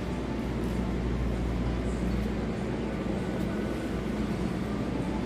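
Steady low rumble and hiss of supermarket background noise, with no distinct events.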